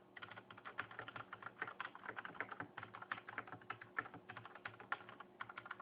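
Typing on a Cooler Master Storm QuickFire Rapid mechanical keyboard with linear Cherry MX Red switches: a fast, uneven run of key clacks, several strokes a second.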